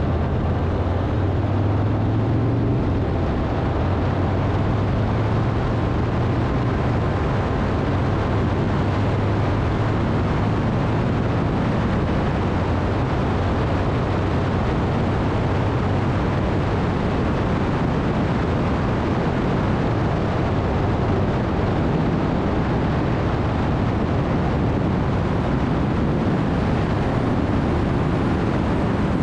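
Harley-Davidson V-twin motorcycle engine running steadily at cruising speed, under a continuous rush of wind and road noise.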